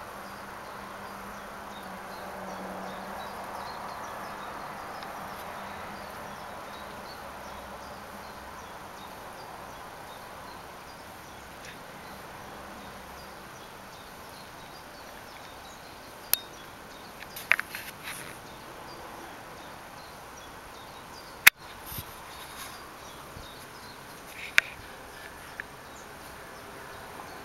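Outdoor background ambience: a steady faint hiss, with a few short sharp clicks and taps in the second half, the loudest a single sharp click a little past two-thirds of the way through.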